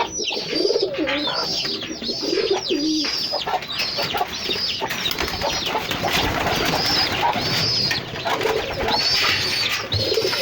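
A flock of domestic pigeons cooing, with many short high chirps repeating over the coos.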